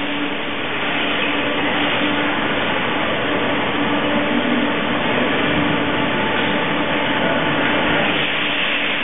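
Steady mechanical running noise of a GEA WestfaliaSurge AutoRotor Global 90 rotary milking parlour in operation: a dense hiss with a steady hum through it.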